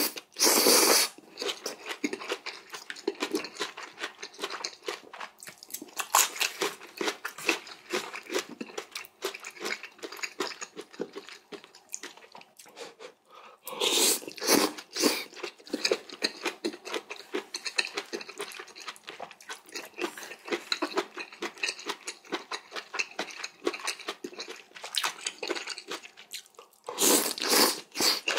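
Close-miked eating of jjamppong noodle soup: wet chewing with crisp crunches of bean sprouts. Three louder, longer bursts of noodle slurping come at the start, around the middle and near the end.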